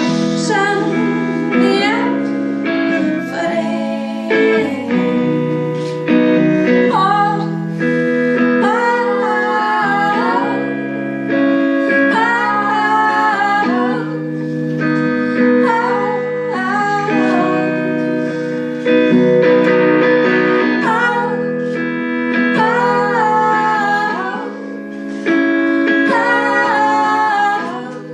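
Live song: a woman's voice singing a wavering melody over held instrumental chords.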